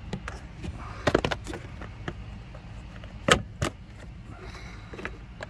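Plastic interior trim panel of a Jeep Compass being worked loose by hand: a series of sharp clicks and knocks as its clips let go, a quick cluster about a second in and the loudest knock a little past halfway.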